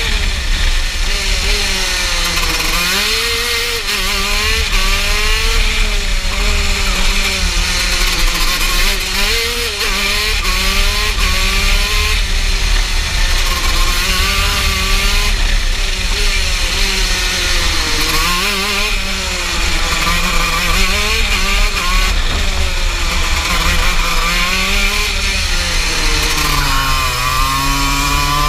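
TM KZ10B 125cc single-cylinder two-stroke shifter kart engine at racing speed, heard from the driver's seat. Its revs rise and fall over and over through the corners, with a deeper drop and climb near the end.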